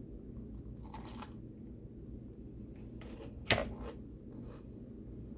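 Low, steady room hum with one sharp click about three and a half seconds in and a fainter knock about a second in.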